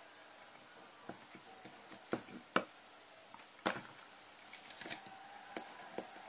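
Small pliers clicking and ticking against aluminium wire as the end of a wire coil is bent into a hook: a handful of irregular sharp clicks, the loudest two about two and a half and three and a half seconds in.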